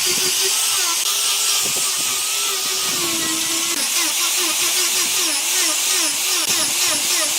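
Power tool running, with a steady hiss and a pitch that wobbles up and down about four times a second, holding steadier for a moment midway.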